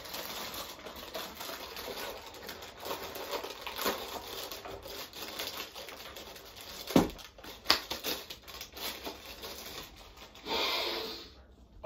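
Cardboard cracker box and its crinkly plastic inner bag being opened by hand: rubbing, tearing and crinkling packaging, with two sharp knocks about seven seconds in and a short rush of noise near the end.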